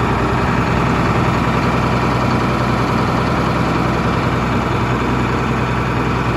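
John Deere 4560 tractor's six-cylinder diesel engine idling steadily.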